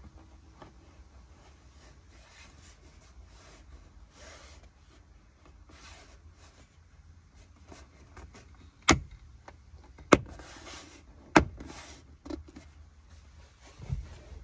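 Plastic A-pillar trim of a Volkswagen Golf Mk8 being pushed back onto the pillar: light rubbing and rustling of the trim, then three loud, sharp clicks about a second apart as its metal clips snap into place. A smaller click and a duller knock follow near the end.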